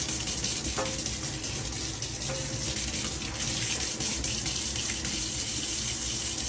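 Kitchen faucet running steadily into a stainless steel sink, the stream splashing as a cat's paw swipes through it.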